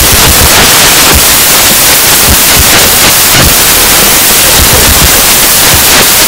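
Loud, steady hiss of noise like static, with a few uneven low thumps.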